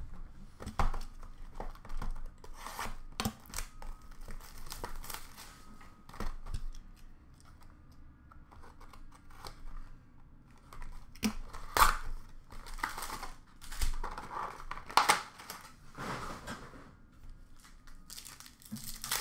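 Hockey card box and foil packs being torn open: wrappers ripping and crinkling, with cardboard and cards handled between the tears. A few louder rips come past the middle.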